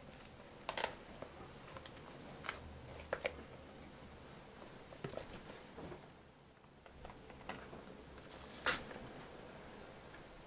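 Cardboard lens box being handled and slid open: scattered taps, scrapes and rustles of the box in the hands, the loudest scrape near the end.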